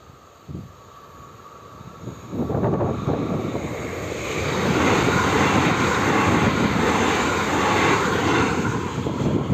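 České dráhy InterPanter electric multiple unit passing over the level crossing: the rumble and rush of its wheels on the rails builds from about two seconds in, is loudest through the later middle, and eases a little near the end.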